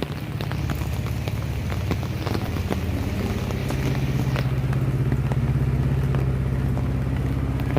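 A motor vehicle's engine running close by with a steady low rumble, growing louder over the first few seconds. Rain ticks over it.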